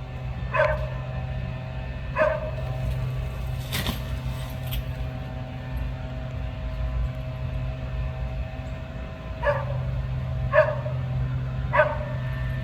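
A dog barking: five short barks, two close together near the start and three in the last few seconds, over a steady low hum. A single sharp click sounds about four seconds in.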